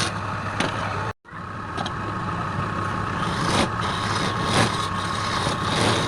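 Wood lathe running with a steady motor hum and mechanical noise; the sound drops out for an instant about a second in.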